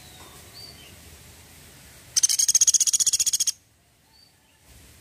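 Pelatuk sampit, a small woodpecker, giving one loud, rapid, high-pitched trilled rattle (its 'tembakan' call) lasting about a second and a half, a little after two seconds in. Faint short chirps come before and after it.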